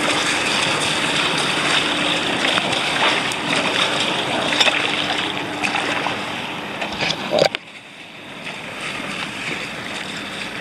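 Water splashing and sloshing around a sea kayak as it is paddled, with a few small splashes scattered through. About seven and a half seconds in there is one sharp knock, and after it the water sound is quieter.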